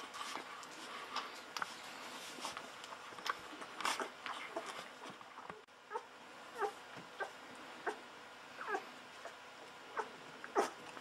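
Young golden retriever puppy feeding from a milk bottle: wet sucking and smacking clicks, then short high squeaks about once or twice a second in the second half.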